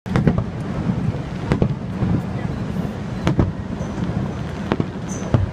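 Fireworks bursting overhead: sharp bangs every second or so, some in quick pairs, over a steady low rumble.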